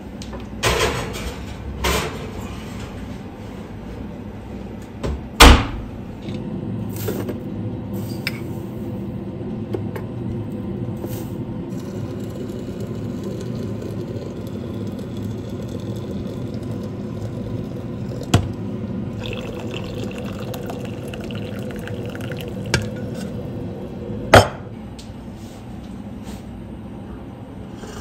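Water poured in a steady stream from a kettle into a glass teapot with a mesh infuser, filling it. Before and after the pour come a few sharp knocks; the loudest is about five seconds in and another comes near the end.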